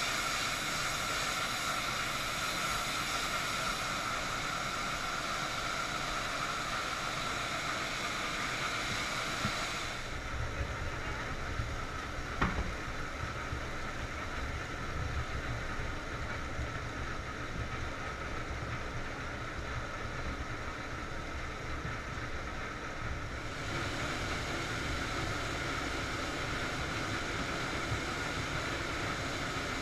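Diemme destemmer-crusher running steadily, a continuous mechanical hum with a high whine, as it crushes grapes and strips them from their stems. Its tone shifts about a third of the way in and again later, with a single click a little before the middle.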